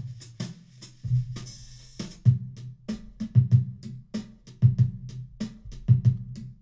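Sampled drum-kit loop from Cubase's built-in loop library previewing: a kick, snare and hi-hat beat with the kicks often in pairs. It has a short break about a second in and stops abruptly at the end.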